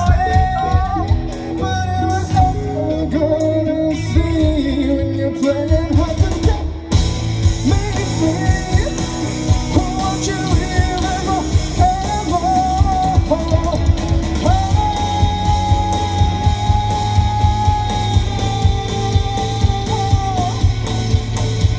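A rock band playing live: a singer's lead vocal over electric guitar, bass and drums, recorded from the crowd on a phone. About seven seconds in, the audio cuts abruptly to another stretch of the performance, and later a long note is held for several seconds.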